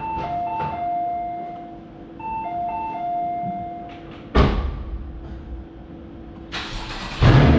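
A two-note electronic chime plays twice over a steady low hum, followed by a single sharp thump about four seconds in. Near the end the Porsche's engine starts with a sudden loud rumble.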